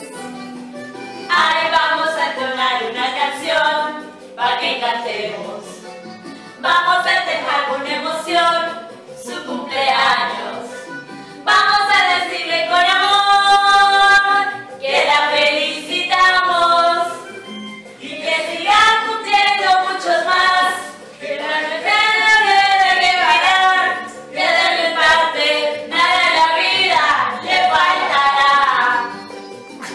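A song with singing voices, in phrases a few seconds long separated by short pauses.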